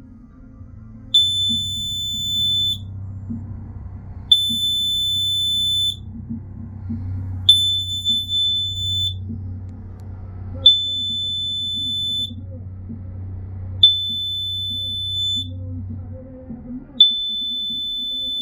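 Smoke detector sounding its test alarm: a loud, high-pitched beep about a second and a half long, repeating about every three seconds, six times. A low hum runs beneath and stops near the end.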